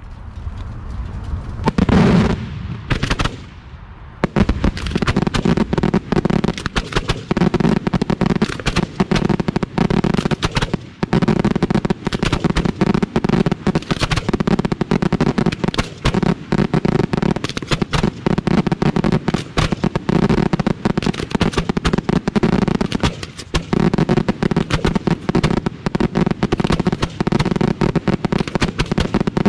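Fireworks finale fired from racks at close range: a couple of separate launches, then from about four seconds in a rapid, unbroken barrage of shells firing out of their mortar tubes, many shots a second.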